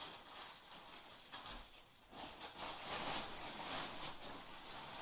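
Woven plastic dust sheet rustling and crackling as it is pulled and arranged by hand, in irregular surges that are loudest about two to four seconds in.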